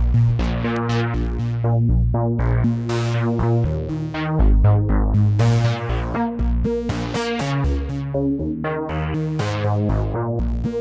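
Electronic background music: synthesizer and keyboard notes over a moving bass line.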